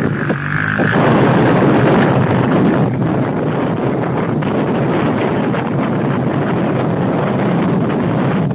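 Quad bike engine pulling away, its pitched note heard in the first second, then mostly covered by loud wind buffeting on the microphone as the quad moves off.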